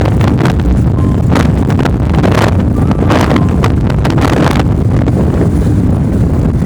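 Wind buffeting the microphone over the steady low rumble of a moving vehicle, with short knocks and gusts every second or so.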